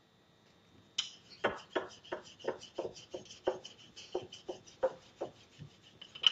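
Rolling pin rolling out a ball of roti dough, a rhythmic rubbing stroke about three times a second, starting about a second in.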